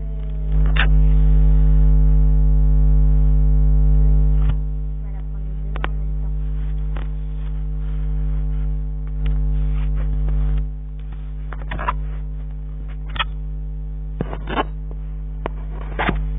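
Steady electrical mains hum, louder for the first few seconds, with scattered sharp clicks and taps of handling.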